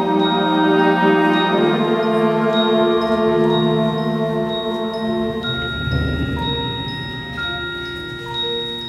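Concert band playing soft held chords with mallet percussion and chimes ringing over them. About six seconds in the chords fade into a low swell, and sparse, short, bell-like high notes carry on as the music grows quieter.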